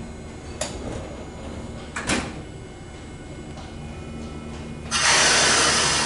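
Kyoto Randen retro tram Mobo 26 at the platform before departure: a few clunks like its doors closing over a low hum, then a sudden loud hiss about five seconds in that slowly fades.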